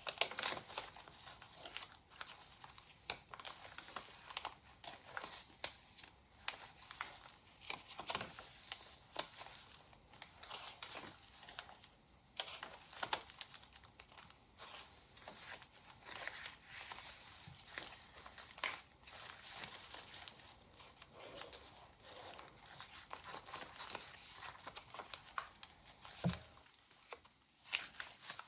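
Paper rustling and crinkling as the pages and tags of a handmade junk journal are turned and handled: soft, irregular rustles and crackles throughout, with a brief lull near the end.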